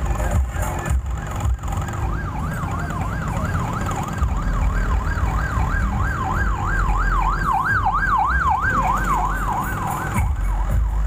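Truck-mounted ronda sahur sound system playing loud electronic dance music with deep bass. From about two seconds in, a fast wailing siren effect rises and falls about two to three times a second over the beat, then stops near the end.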